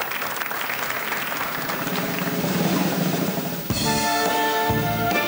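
Audience applause, then about three and a half seconds in a large orchestra with brass and drums comes in abruptly, playing held chords with drum hits.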